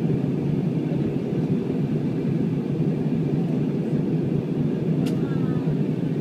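Steady drone of an airplane's engines and airflow heard inside the passenger cabin, deep and unchanging. A single sharp click about five seconds in.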